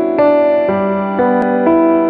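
Background music: a keyboard, electric-piano-like, playing sustained chords that change about twice a second.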